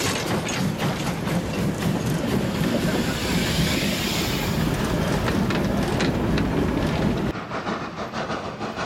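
A steam train passes close by. The locomotive's exhaust beats give way to the rolling rumble and clickety-clack of the box wagons going past. About seven seconds in the sound drops suddenly to a quieter, more distant train sound.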